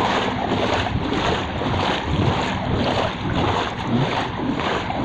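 Floodwater sloshing and splashing as someone wades through it, in an uneven, surging rush, with wind buffeting the microphone.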